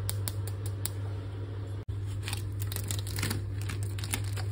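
Protective plastic film being peeled and crumpled off a new stainless steel gas hob, giving irregular crinkling and crackling over a steady low hum.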